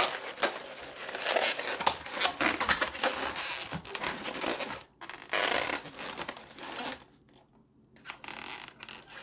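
Inflated latex modelling balloons rubbing and crinkling against each other as a balloon tail is fed through the sculpture. The noise drops away for about a second near the end.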